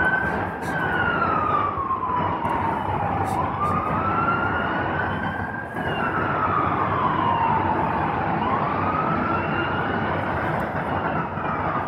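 Emergency vehicle siren wailing, its pitch slowly rising and falling about every five seconds, over the steady hiss of traffic.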